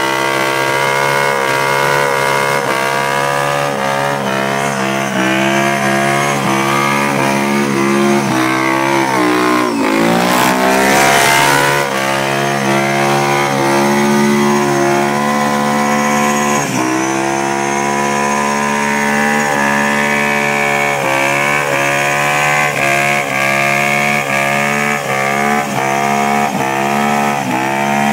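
ATV engine held at high revs in a burnout, the pitch rising and falling over and over as the throttle is worked while the rear tires spin on asphalt. Around ten seconds in the revs drop and a rushing noise swells for a couple of seconds before the engine climbs again.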